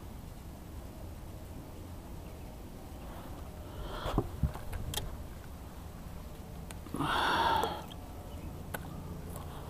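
Gear being handled on a boat deck: a few light knocks and clicks about four to five seconds in, then a short, louder rushing noise about seven seconds in, over a low steady hum.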